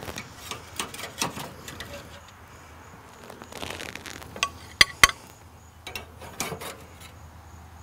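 Metal spatula scraping along a grill grate and clinking against its bars while burgers are lifted off, with scattered clicks and two sharp clinks about five seconds in.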